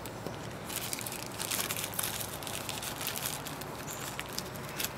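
Small plastic bag holding a pair of earphones rustling as it is handled and pulled open, a crackle of fine clicks starting a little under a second in.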